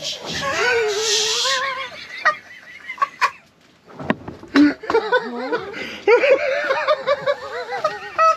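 Excited laughter and wordless exclamations in a high, strained voice, with a few sharp knocks in the middle.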